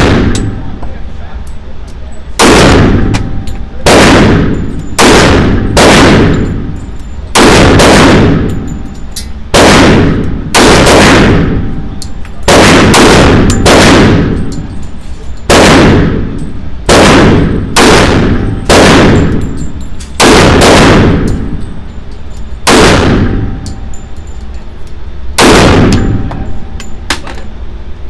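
.45 ACP pistol shots from a SIG Sauer 1911, fired one after another at a steady pace, roughly one to two seconds apart. Each sharp crack is followed by a short ringing echo. The magazine alternates 230-grain round-nose ball and HST hollow-point rounds.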